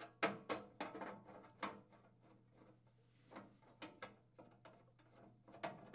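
Screwdriver turning out the screws of a PTAC subbase's electrical receptacle cover, with the cover being handled: small clicks and scrapes in short bursts, near the start, about halfway through and near the end.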